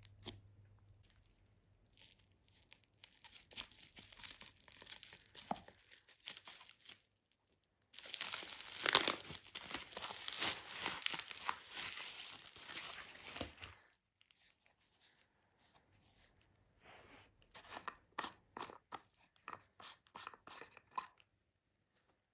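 Bubble wrap crinkling and crackling as it is pulled off a plastic tub, with one loud, dense stretch of several seconds in the middle and softer scattered crackles and clicks before and after.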